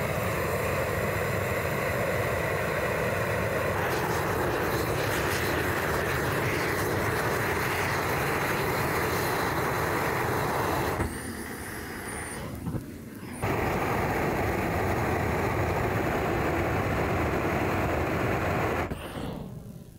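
A motor running steadily, a dense mechanical noise that drops away briefly about eleven seconds in, returns a couple of seconds later and fades out near the end.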